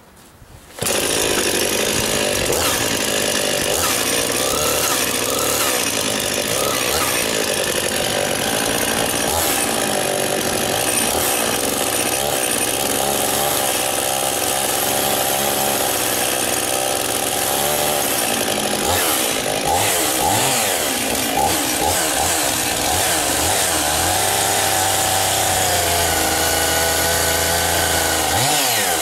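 Husqvarna 51 chainsaw's 50cc two-stroke engine running. It comes in abruptly about a second in and runs steadily from then on, on its first start of the season.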